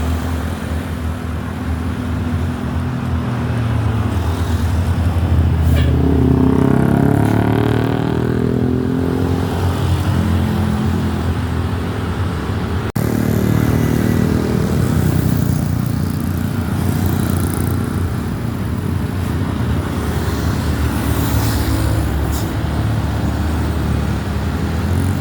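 Road vehicle engines running with a steady low rumble. Traffic swells as vehicles pass about six seconds in and again just after a brief break about thirteen seconds in.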